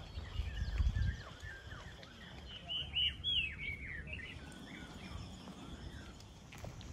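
Birds singing, several calls overlapping, with one bird's quick run of falling chirps about three seconds in. A low rumble sits under the first second.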